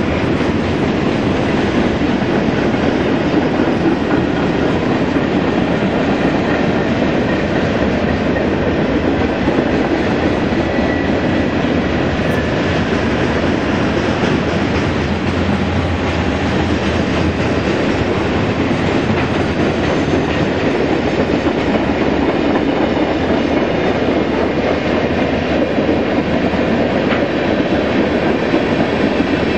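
Freight train cars rolling steadily past close by: a continuous rumble and clatter of steel wheels on the rails, evenly loud throughout.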